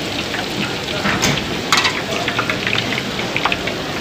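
Hot oil frying in a large wok: a steady sizzle with a scatter of sharp crackles and pops, thickest about a second and a half in.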